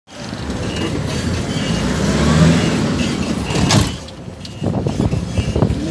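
Minibus taxi driving along, heard from inside the cabin: engine and road rumble building over the first couple of seconds, a short loud rushing sound just before four seconds in, then quieter running broken by low knocks and rattles.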